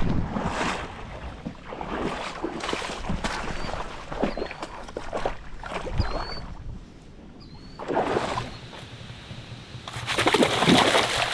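Footsteps splashing through shallow river water as a person wades, roughly one step a second, with the loudest splashing near the end. A small bird chirps four short notes in the middle.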